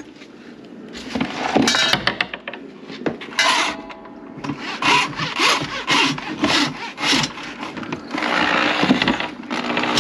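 Irregular scraping and rubbing strokes. About eight seconds in, a steadier hiss sets in.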